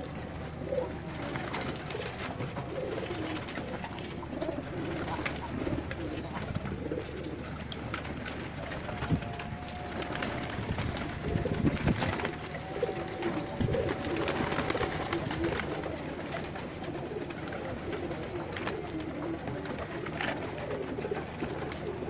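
A flock of domestic pigeons cooing all together without a break, with bursts of wing flapping from birds fluttering up and landing, loudest around the middle.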